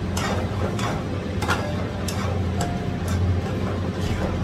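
Irregular metal clinks and scrapes against a steel kadai as sugar is tipped in from a cup and stirred into cooked semolina for rava kesari, about seven sharp strokes over a steady low hum.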